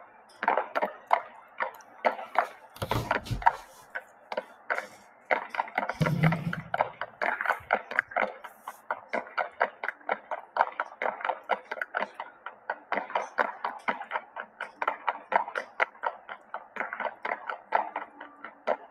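A steady run of short, sharp ticks or taps, about three or four a second, with two brief low rumbles about three and six seconds in.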